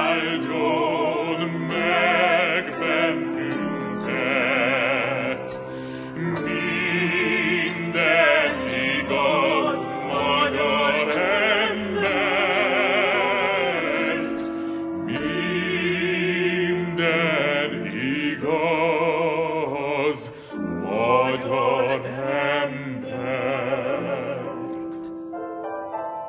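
Operatic baritone singing a slow Hungarian hymn in long, held phrases with wide vibrato, with choir and orchestra accompanying; the music softens near the end.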